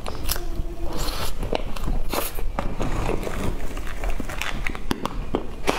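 Close-miked eating sounds of soft cream sponge cake: wet mouth clicks and smacks as it is chewed, many short sharp clicks throughout.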